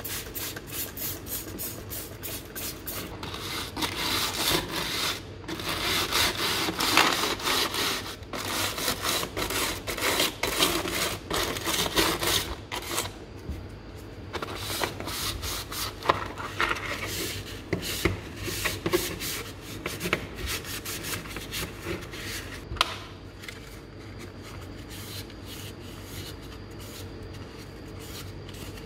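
Wet plastic socket tray being scrubbed by hand, rapid back-and-forth rubbing strokes that ease off about halfway through into softer, sparser wiping, with a faint steady hum underneath.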